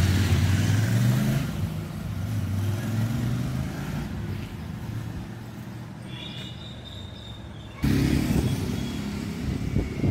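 Royal Enfield Interceptor 650's parallel-twin engine running as the motorcycle is ridden. It is loudest at first and fades over several seconds, then is suddenly loud again about eight seconds in.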